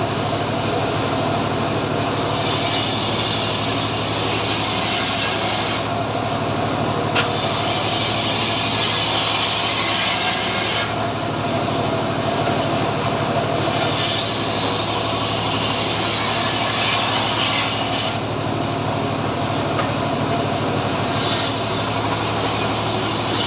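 Homemade srekel sawmill running steadily, its engine humming low, while the blade saws through teak in repeated cuts: a loud hissing rasp starts and stops four times, each cut lasting three to four seconds.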